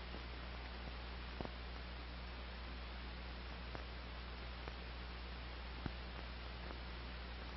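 Steady hiss with a low electrical hum underneath and a few faint scattered clicks: the background noise of an old film soundtrack with nothing else on it.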